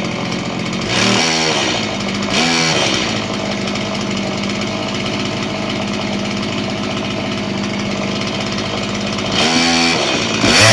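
Chainsaw engine revving up and dropping back twice, then running steadily while the chain cuts through scrap lumber, with another rev near the end.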